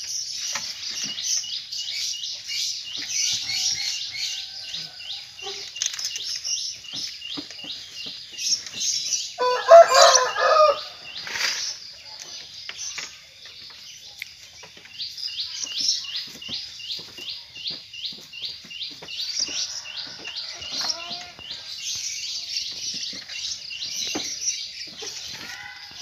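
Small birds chirping fast and high almost throughout, and a rooster crowing once, loudly, about ten seconds in.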